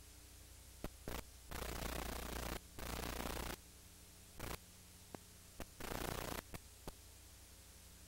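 A steady low hum, broken by sharp clicks and several abrupt bursts of static-like hiss, the longest two lasting about a second each in the first half.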